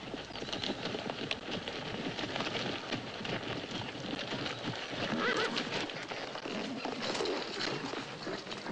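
Several ridden horses moving together, their hooves clopping in a dense, uneven patter, with a horse whinnying about five seconds in.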